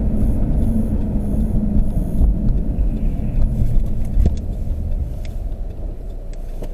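Steady low rumble of a car heard from inside the cabin, easing slightly after about four seconds, with a few faint clicks.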